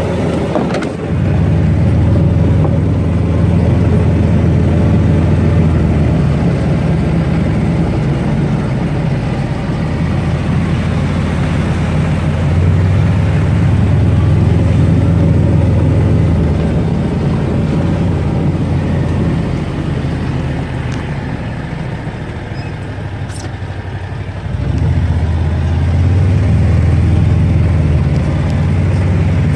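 Engine of a small utility vehicle running as it drives along, a steady low hum. It eases off for several seconds past the middle, then picks up again.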